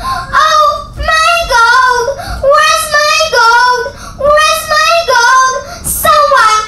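A boy's theatrical wailing, acting out a miser crying over his stolen gold: a string of loud, drawn-out sobbing wails, about one a second, each wavering in pitch.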